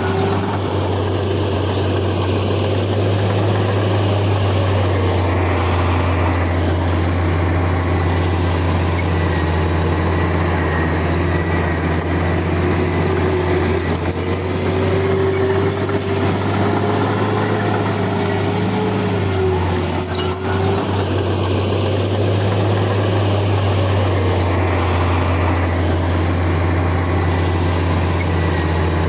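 Komatsu bulldozer's diesel engine running under load, a steady deep drone with a higher whine that rises and falls in pitch several times as it works.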